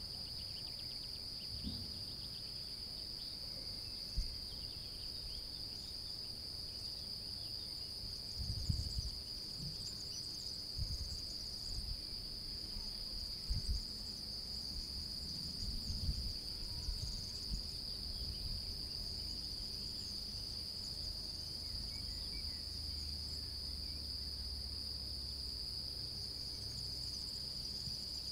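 A chorus of many European field crickets (Gryllus campestris) singing, their songs merging into one steady high-pitched trill. Low rumbles and thumps come and go underneath, the strongest around 9, 14 and 16 seconds in.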